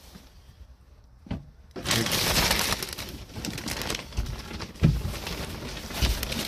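Plastic wrapping on a new mattress crinkling and rustling as the bed is lifted on its gas struts, starting about two seconds in, with a few dull knocks from the bed base. A single click comes just before.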